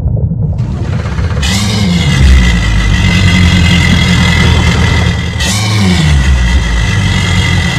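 Twin Mercury Racing 300 outboard engines revving hard: two sharp surges about four seconds apart, each falling away in pitch, over a steady high whine and a deep rumble.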